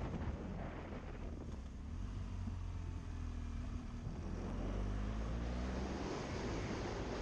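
Adventure motorcycle running along a road, heard from the rider's position as a deep rumble of engine and wind buffeting on the microphone. The engine pitch shifts a little midway.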